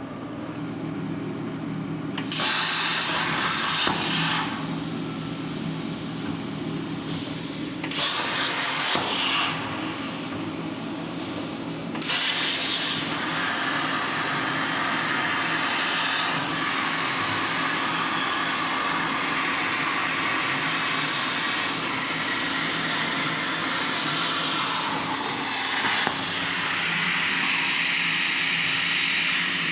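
CNC plasma cutter's arc hissing as it cuts a small mild steel disc. The hiss starts about two seconds in, eases off and flares again a few times, then runs steadily from about twelve seconds in, over a steady machine hum.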